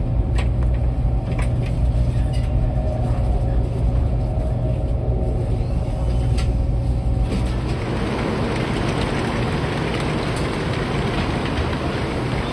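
Steady low rumble of a moving vehicle heard from inside it; about seven and a half seconds in, a few steady tones fade and a broader hiss takes over.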